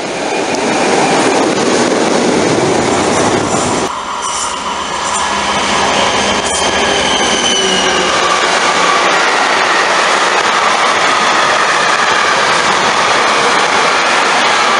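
Trains running through stations: steady loud rolling of steel wheels on rail, with faint high wheel-squeal tones. The sound changes abruptly about four seconds in, as one passing train gives way to another.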